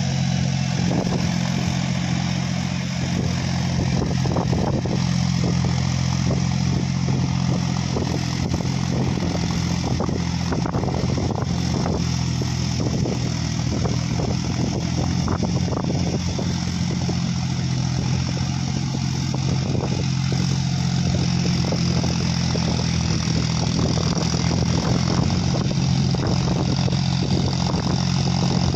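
John Deere 5050D tractor's three-cylinder diesel engine running steadily under load while working a flooded paddy field.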